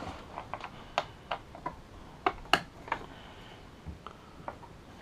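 Irregular sharp plastic clicks and taps from handling SATA cables and their connectors inside a PC case, about ten in all, the loudest about halfway through.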